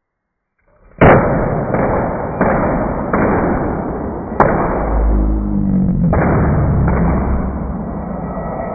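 Capacitors blowing up one after another as a motor turns them onto a live mains wire: a loud bang about a second in, then about six more bangs, mostly at regular steps of under a second, with a continuous rushing noise between them.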